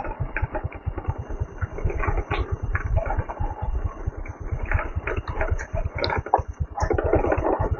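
Motorcycle engine running while the bike is ridden, with a low, rapid, even pulsing from its exhaust under road and wind noise.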